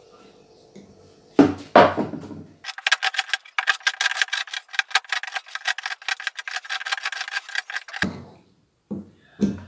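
A steel-bladed hand tool chipping and scraping at a block of hardened gypsum plaster. Two heavy knocks come about a second and a half in, then a quick run of scratchy chipping strokes for about five seconds, then a few dull knocks near the end.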